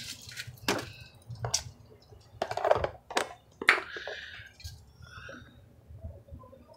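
Handling noise: several light clicks and knocks at irregular intervals as the phone is picked up and moved about, with a brief rustle about four seconds in.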